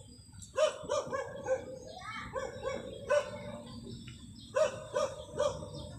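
A dog barking repeatedly, short high barks in bunches of two or three.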